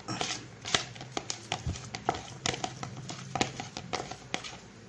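Plastic spoon stirring a thick, sticky ground-beef bait paste in a plastic bowl, with irregular clicks and taps of the spoon against the bowl several times a second. The bait is being mixed until it is evenly blended.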